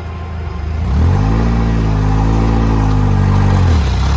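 Off-road 4x4's engine revving up about a second in, held at high revs, then dropping back near the end.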